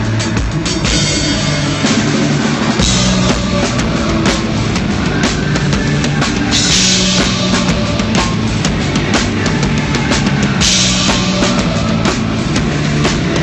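A rock band playing live at a sound check, with the drum kit loudest: a steady beat and cymbal crashes over held bass notes.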